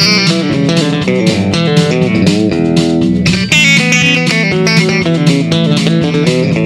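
Stratocaster-style electric guitar played in chicken-pickin country style: quick runs of short plucked notes, with steady low notes sounding underneath.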